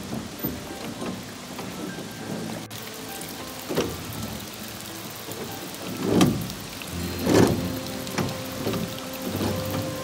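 Steady rush of falling and splashing water from a waterfall, with several louder splashing swells a few seconds apart, under faint sustained musical tones.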